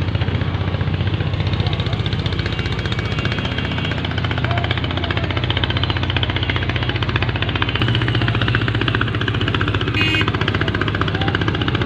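A small engine running steadily with a rapid, even pulse. Its low hum shifts slightly about four seconds in.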